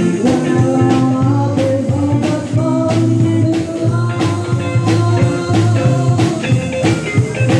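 Live band playing an upbeat number with guitar, bass and a steady drum beat.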